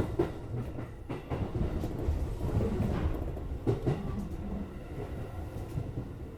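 JR West 205 series electric train running, heard from inside the front car, with a steady low rumble. The wheels click over rail joints in quick pairs: at the start, about a second in, and again just before four seconds.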